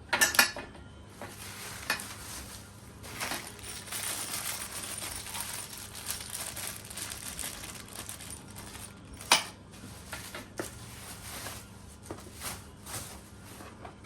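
Hard parts being handled and set down: sharp clinks and knocks near the start, about 2 s in and about 9 s in, with a long stretch of rustling, like packaging, in between.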